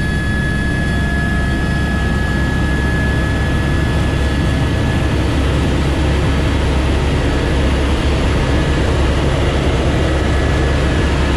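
AS350 Écureuil helicopter in flight: a loud, steady drone of rotor and turbine, with a thin high whine above it that fades partway through.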